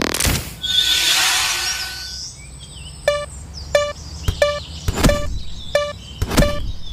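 A rushing noise for about the first two seconds, then a level-crossing alarm bell ringing 'kan kan', one pitched ding about every two-thirds of a second, with sharp low knocks among the strokes.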